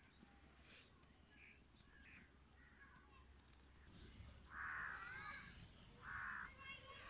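A crow cawing twice, a longer harsh call about four and a half seconds in and a shorter one about a second later, with faint bird chirps in between.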